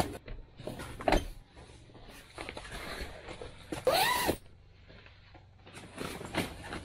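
Gear being handled and set down on a packed-snow floor: scattered knocks and rustling, a sharper knock about a second in, and one short squeak that rises and falls in pitch about four seconds in.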